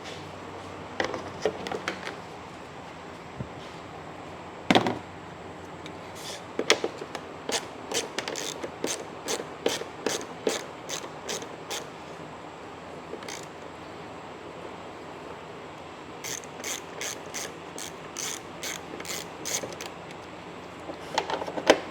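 Hand ratchet wrench clicking in runs, about two clicks a second, as the fasteners holding a tail light are undone, with a single sharp knock a few seconds before the first run.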